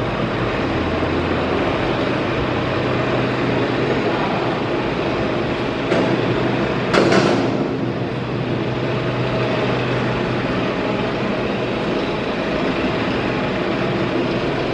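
Steady machinery hum and noise filling a large factory hall, with two short knocks about six and seven seconds in.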